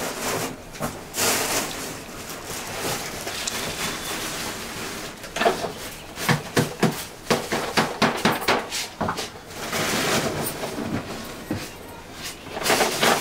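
Plastic bags rustling and plastic jars being handled: a run of sharp clicks and knocks, busiest in the middle, with crinkly rustling in between.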